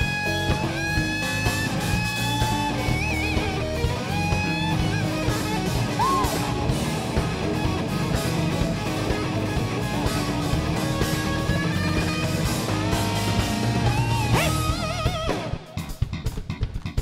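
Electric guitar solo over bass, drums and keyboard in a rock-style band: long bent notes with vibrato. About fifteen seconds in, the solo ends and the band switches to short stop-start hits led by bass guitar.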